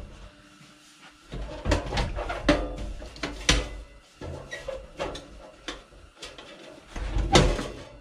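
Sheet-metal cabinet of a portable kerosene heater being set down over its burner base and shifted to seat it: a string of metal clunks and rattles, the loudest near the end.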